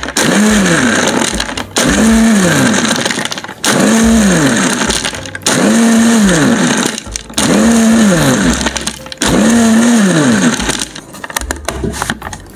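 Countertop blender run in six short pulses, each under two seconds, its motor whine rising as it spins up and falling as it slows, blending banana, milk and ice cubes into a smoothie. The motor stops near the end, followed by a few light knocks as the plastic jar is lifted off the base.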